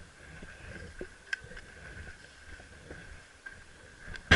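Quiet background with a few faint clicks, then near the end a short, loud burst of under a second that fits an electric airsoft rifle's gearbox cycling through a quick burst of fire.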